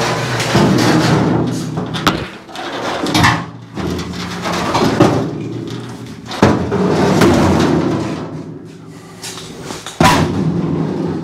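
Irregular knocks and clanks as a one-piece steel floor pan is shifted into place under a 1957 Chevrolet body, over a steady low hum.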